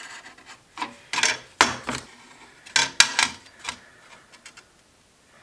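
Marking out a part on sheet metal: short scratchy marker strokes, and light clicks and rubs as a metal square is set and slid on the sheet, in uneven bursts that die away near the end.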